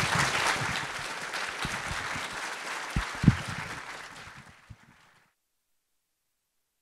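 Audience applauding, dying away over about five seconds, with a few low thumps from a handheld microphone being handled and fitted into its stand. The sound then cuts off to silence.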